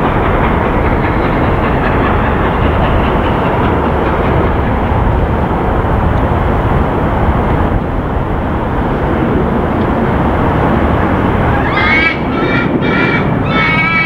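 Peppercorn A1 Pacific steam locomotive 60163 Tornado and its train running at speed: a loud, steady rushing rumble with no clear beat. From about twelve seconds in, a high, wavering call rises and falls several times above it.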